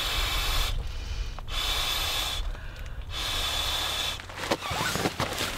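Three long breaths blown into a Therm-a-Rest XTherm inflatable sleeping pad to inflate it, each a breathy rush about a second long, followed by a few short rustles near the end.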